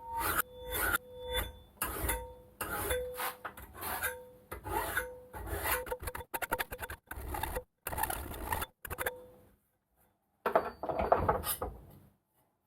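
Hacksaw cutting through a steel bracket held in a vise: rasping back-and-forth strokes a little under one a second, the steel ringing faintly with each stroke. The sawing pauses just under ten seconds in, then a last run of strokes follows.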